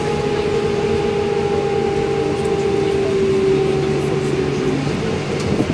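Ride noise inside a bus on a wet road: a steady drivetrain whine, falling slightly in pitch, over tyre and road rumble. The whine fades out about three quarters of the way through.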